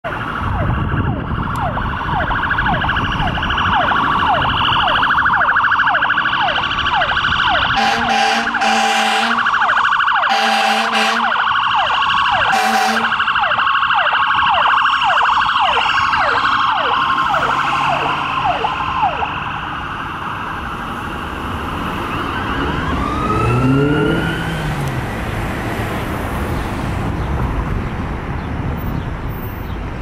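Ambulance electronic siren yelping, a fast repeating up-sweep, with three deep air-horn blasts from the same ambulance (a 2006 Ford/Horton) partway through; the first two blasts are longer and the last is short. The siren then fades as the ambulance pulls away, with a single slower rise-and-fall in pitch near the end.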